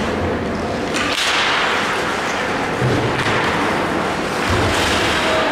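Ice hockey faceoff and play: a sharp stick clack about a second in, then skates scraping and hissing on the ice, with a few dull thumps.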